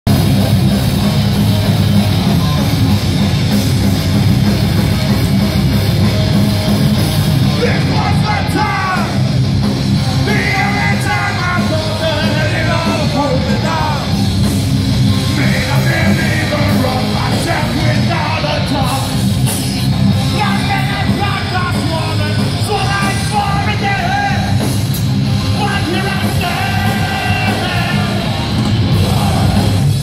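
Hardcore band playing live, a loud, steady wall of distorted guitar and low end, with a vocalist shouting over it from about eight seconds in.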